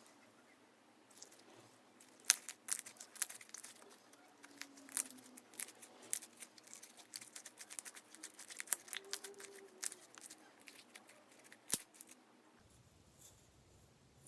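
Slime being squeezed and stretched by hand, giving many irregular sticky clicks and pops for about ten seconds, then stopping.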